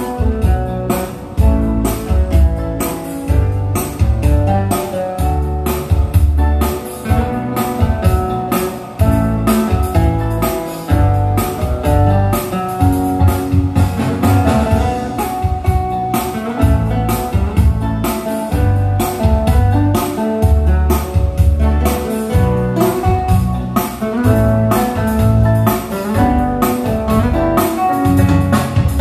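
Instrumental music from an arranger keyboard with a steady drum beat and heavy bass, played loud through a large line-array speaker system with neodymium drivers.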